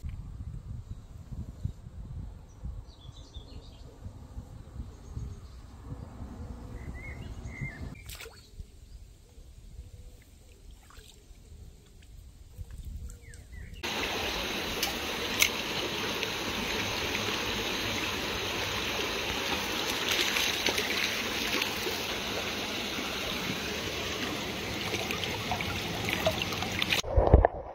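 Shallow stream running over stones: a steady rush of water that starts suddenly about halfway through. Before it there is only a low rumble and a few faint bird calls.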